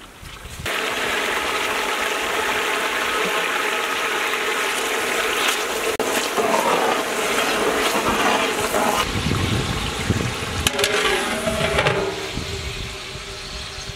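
Chopped tomatoes tipped into hot oil in a large pot, setting off a loud sizzle that starts suddenly about a second in and carries on. Near the end there are a few sharp metal clinks as a lid goes onto the pot.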